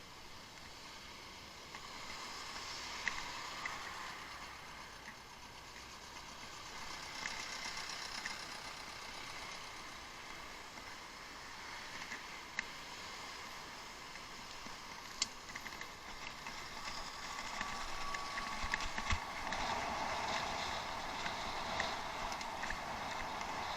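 Bicycle being ridden off-road, heard from a head-mounted action camera: a steady rush of tyre and wind noise with scattered clicks and rattles from the bike. It grows louder over the last few seconds.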